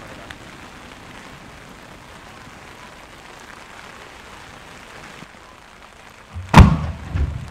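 Steady hiss of heavy rain. About six and a half seconds in, an aerial firework shell bursts with a single loud boom and a deep rumble after it, and a smaller bang follows near the end.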